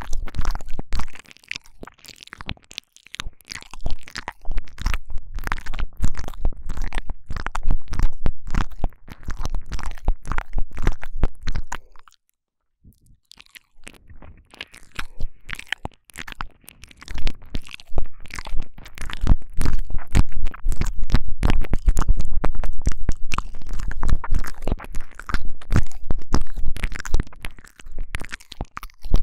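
Intense close-up wet mouth sounds at a binaural microphone's ear: lips, tongue and saliva clicking and smacking in a dense, crackling stream with low thumps, broken by a brief pause about twelve seconds in.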